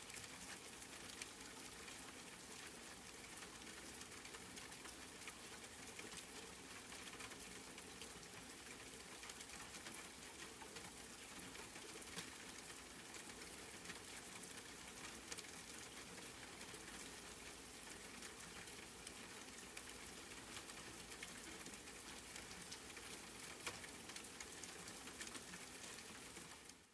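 Faint, steady rain ambience: an even hiss of rainfall with scattered light drop ticks, fading out at the very end.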